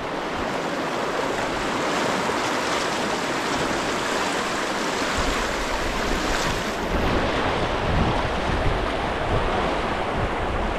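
Rushing white water of a river rapid, a steady loud hiss of moving water close around a kayak. From about five seconds in, wind buffets the camera microphone with an uneven low rumble.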